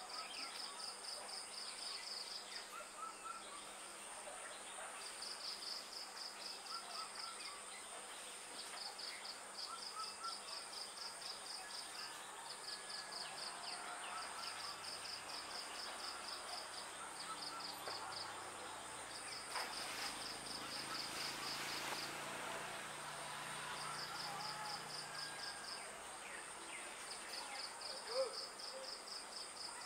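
Insects calling: repeated bouts of rapid pulsed trilling, each a second or two long, over a steady high-pitched drone, with faint bird chirps and one short louder sound near the end.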